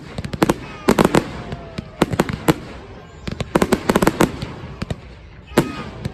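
Fireworks exploding in a rapid run of sharp bangs that come in clusters about a second apart. A faint falling whistle is heard now and then between them.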